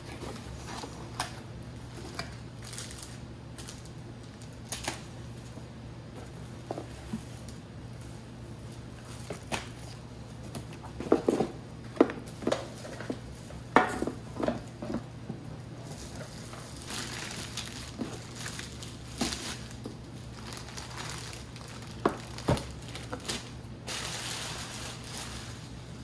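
Unpacking a cardboard shipping box: plastic wrapping and packaging crinkling and rustling, with scattered knocks as box flaps and packaged items are handled and set down on the desk. A faint steady low hum runs underneath.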